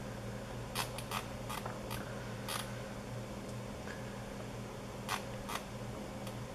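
Irregular clicks of a computer mouse, its buttons and scroll wheel, as a web page is scrolled, about ten clicks bunched in the first half with a few more near the end. A steady low hum runs underneath.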